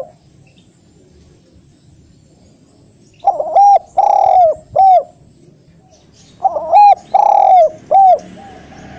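Spotted dove singing its cooing song twice, about three seconds apart, loud and clear. Each phrase is a couple of quick short coos, a long drawn coo and a short closing coo.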